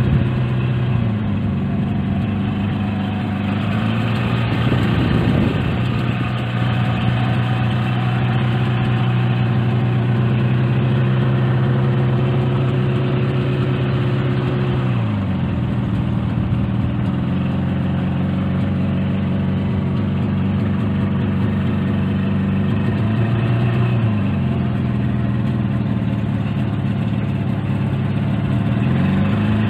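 Motorboat engine running steadily, its pitch shifting several times as the throttle changes, with a clear dip and recovery about halfway through, as the boat comes in to its stopping place.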